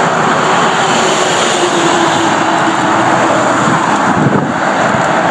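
Loud, steady rushing noise of a passing vehicle.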